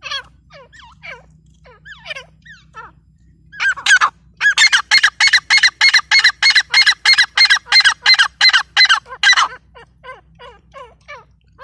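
Grey francolins (teetar) calling: scattered short, falling notes, then from about four seconds in a loud, fast run of repeated notes, about four a second for some five seconds, which then trails off into softer scattered falling notes.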